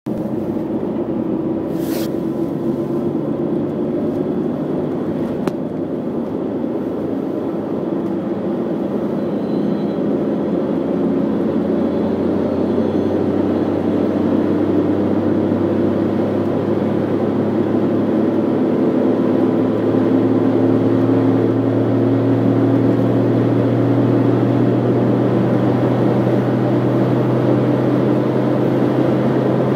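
Car engine and tyre noise heard from inside the cabin at expressway speed, a steady drone whose engine note climbs slowly and grows louder from about twenty seconds in. There is a sharp click about two seconds in and a fainter one a few seconds later.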